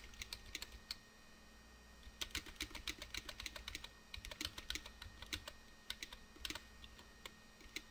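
Computer keyboard keys tapped repeatedly in quick runs of several keystrokes a second, with short pauses between runs. The keystrokes are faint.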